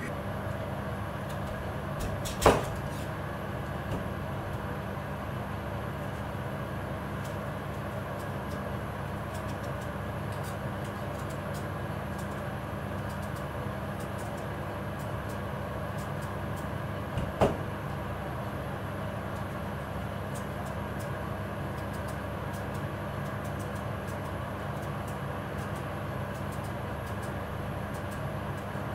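Steady low hum of kitchen background noise, broken twice by a single sharp knock: a couple of seconds in, and again a little past the middle.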